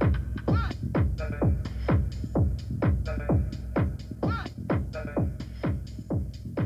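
Techno music with a heavy, steady kick-drum beat at about two beats a second, each kick sweeping down in pitch, under repeating synth notes.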